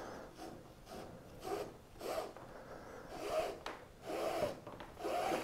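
Rudder control rope being pulled through a hole in a kayak's plastic rudder bracket, a series of short rubbing strokes roughly one a second as the line is drawn through by hand.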